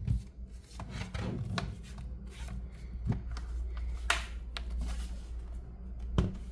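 Hands working on a laptop: a sharp knock at the start, then scattered taps, clicks and rubbing of plastic and metal parts, over a steady low hum.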